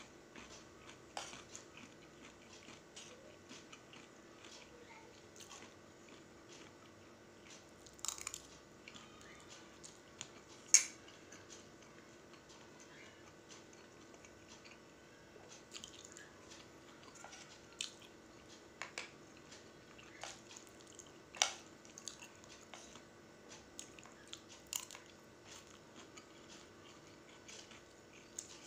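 Close-up mouth sounds of a person chewing a mouthful of fried instant noodles, with scattered clicks of a metal spoon on a ceramic plate; the sharpest clicks come about 11 and 21 seconds in.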